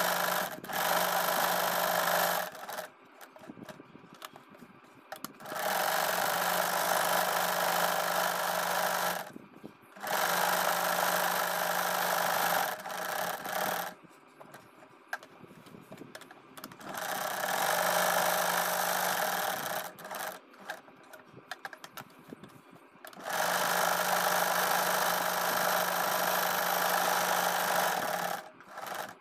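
An Usha Stitch Magic electric sewing machine runs in five bursts of a few seconds each, stitching a dense zigzag (satin) stitch, with short pauses between runs.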